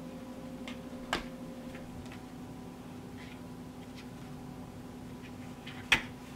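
Handling sounds of a small hand tool and a leather wallet on a wooden workbench as old stitching is picked out: faint scratches and two sharp clicks, one about a second in and a louder one near the end, over a steady low hum.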